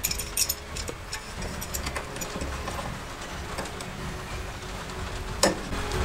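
Light metallic clicks and taps of a steel C-clamp and a hardened marking point being set against a steel lathe back plate, with one sharper click about five and a half seconds in, over a low steady hum.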